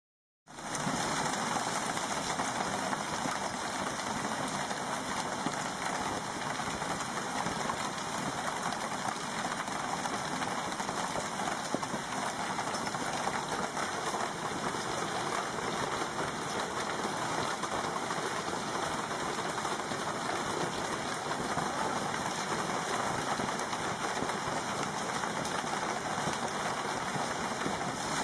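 Heavy hail falling: a dense, steady noise of hailstones striking the ground and a parked car.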